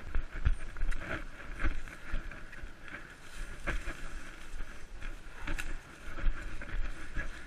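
A runner's footfalls thudding irregularly as he pushes through tall wet grass and undergrowth, with the vegetation swishing and brushing against his legs and body.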